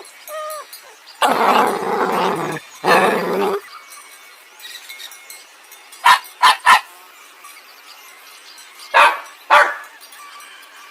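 Dog barking in short, sharp barks: three in quick succession about six seconds in and two more about nine seconds in. Earlier, about one and three seconds in, there are two longer rough, noisy sounds.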